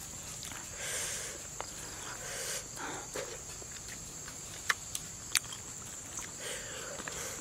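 Close-up sounds of eating grilled fish by hand: soft mouth and handling noises and a few sharp clicks as the flesh is picked from the bones and eaten, over a steady high-pitched insect drone.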